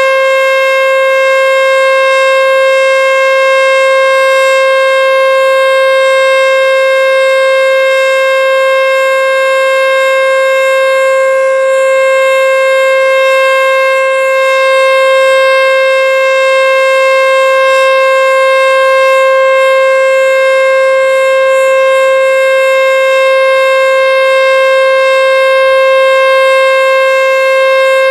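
American Signal Tempest 121 (T-121) storm siren sounding its steady Alert signal: one loud, unbroken tone that holds its pitch with no rise or fall.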